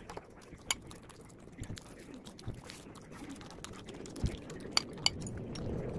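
A metal fork clinking against a ceramic bowl: one sharp clink about a second in and two more close together near the end, over a low background murmur.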